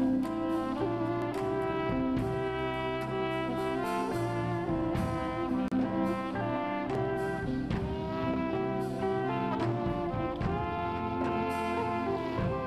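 Live jazz from trumpet, electric guitar and drum kit: long held melody notes, some sliding smoothly between pitches, over cymbal and drum strokes.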